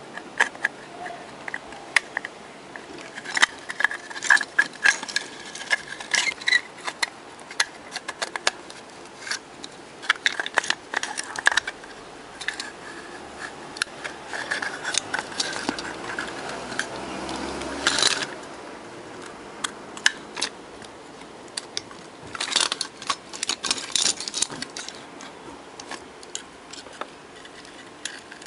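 Hands handling and taking apart a wireless microphone's handheld casing: irregular clicks, taps and short scrapes, with one louder rasping scrape about two-thirds of the way through.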